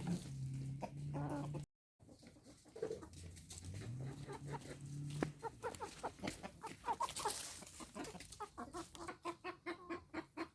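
Chickens clucking: a flock's short calls, coming quickly, several a second, toward the end. A brief dropout in the sound comes near two seconds in.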